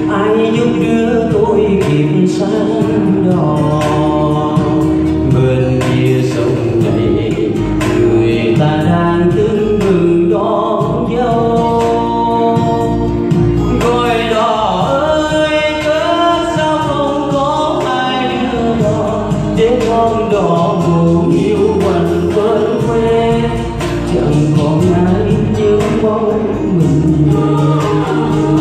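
A man sings into a handheld microphone over instrumental accompaniment, his voice carrying a gliding melody with long held notes.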